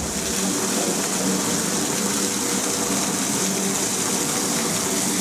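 Small fountain splashing steadily, thin jets of water falling from a stone arch into a basin, with a faint steady low hum underneath.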